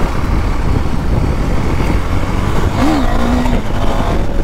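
KTM Duke 390 single-cylinder motorcycle being ridden, its engine under heavy wind rumble on the microphone. A short pitched sound rises, falls and levels off about three seconds in.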